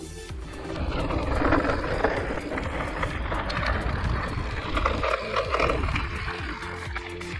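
Giant Reign E+ e-mountain bike riding down a rough trail: a steady rumble of tyres over the ground, with irregular clicks and rattles from the bike.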